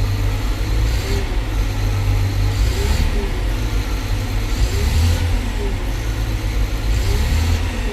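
Caterpillar 950H wheel loader's C7 diesel engine revved several times on the accelerator pedal, rising and falling back each time. It picks up promptly, a sign of good injection actuation pressure after the overhaul.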